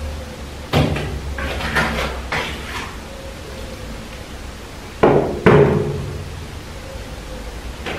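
Plastering trowel knocking and scraping as perlite plaster is worked. There is a group of sharp knocks about a second in and two louder knocks a little after five seconds, over a steady low hum.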